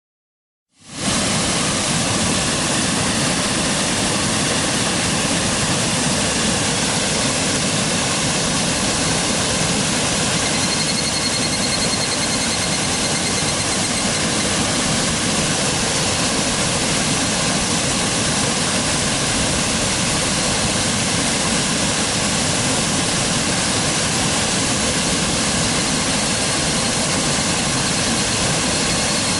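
A river rushing steadily, cutting in abruptly about a second in.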